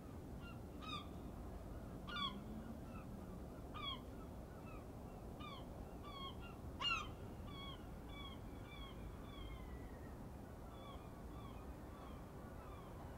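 Birds calling again and again, a few short downward-slurred calls a second from several birds at once, some louder and nearer than others, thinning out towards the end. A faint low rumble runs underneath.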